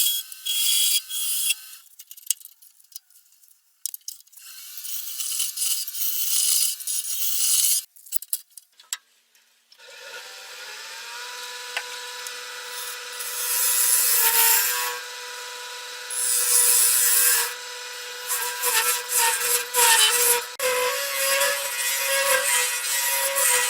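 Woodworking power tools cutting wood: short cutting bursts with pauses at first, then, about ten seconds in, a wood lathe starts running with a steady hum while a turning tool cuts the spinning wood in repeated louder passes.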